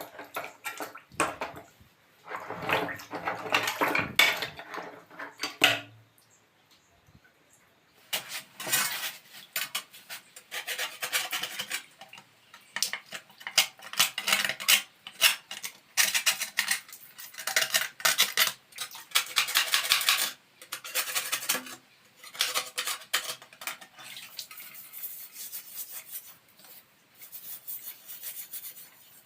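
Metal gas-stove parts clinking and scraping as they are handled, in irregular bursts of sharp clicks with short pauses.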